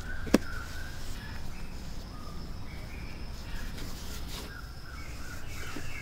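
Birds chirping in short, scattered notes over a steady high insect drone, with one sharp click about a third of a second in.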